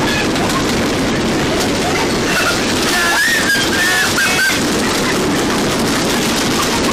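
Storm wind and driving rain, a steady loud rush of noise, with a few short high cries about three to four seconds in.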